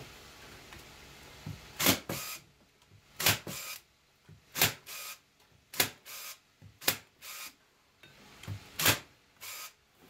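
Corded electric staple gun firing staples through wire mesh into a wooden frame: six sharp shots about a second or two apart, each followed by a softer click.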